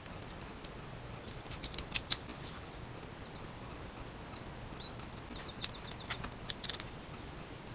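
Light sharp clicks and taps of small RC kit parts being handled during assembly, a cluster about a second and a half in and more past the middle. Between them a bird chirps a few quick high phrases, ending in a fast trill.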